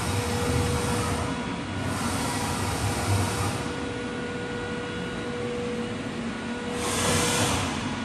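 Anayak Performer 2000 CNC bed milling machine running through axis moves: a steady machine hum with a constant tone, and a rushing hiss that swells and fades in spells of a second or two.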